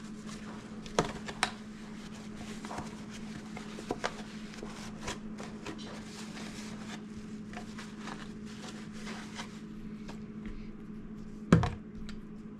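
Scattered light knocks and clicks of mandarins and a plastic fridge bin being handled, the loudest knock near the end, over a steady low hum.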